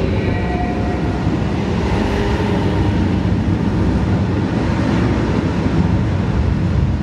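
A loud, steady, deep rumble played through a show's sound system.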